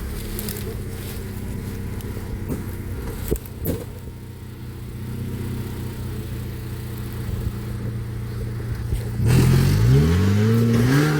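Maruti Gypsy engine running steadily at a low idle-like note, with a couple of sharp knocks about three and a half seconds in, then revved hard about nine seconds in, its pitch rising and falling several times.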